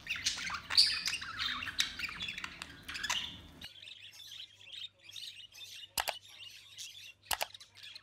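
Budgerigars chirping and chattering, several birds at once, in quick high twitters that thin out about halfway through. There are a couple of sharp clicks in the second half.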